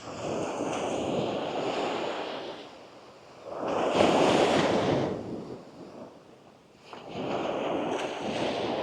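Small waves breaking and washing up the shore, three in a row, with the middle one, about four seconds in, the loudest.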